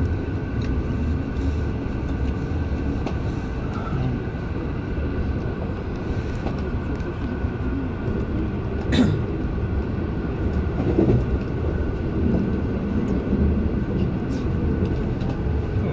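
MI09 RER train running between stations, heard from inside the carriage: a steady rumble of wheels on the rails with a constant motor hum, and one sharp click about nine seconds in.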